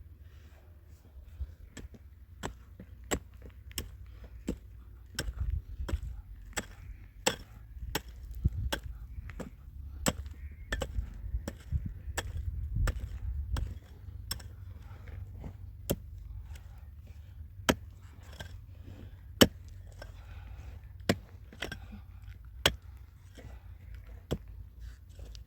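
A hand tool striking hard over and over, a sharp blow about every half second to second, with a low rumble underneath.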